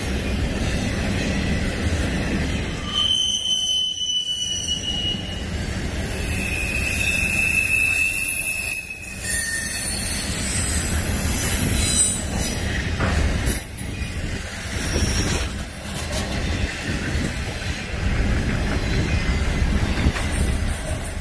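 Freight train rolling past: a steady rumble of steel wheels on rail, with shrill wheel squeals that set in about three seconds in and fade out by about ten seconds.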